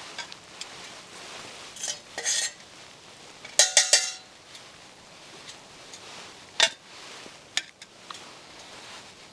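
Metal camping cookware being handled: a scrape about two seconds in, then three quick ringing clinks, and a couple of single knocks later on.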